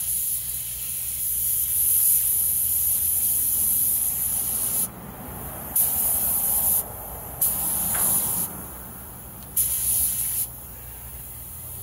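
Gravity-feed air spray gun spraying a light tack coat of acrylic enamel: a steady hiss of air and paint for about five seconds, then three shorter blasts of about a second each as the trigger is pulled and let go.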